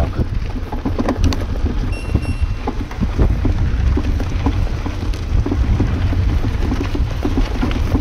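Bicycle being ridden on a dirt road: steady wind buffeting on the microphone with a constant crackle of tyres on grit. A short, high, steady tone sounds about two seconds in.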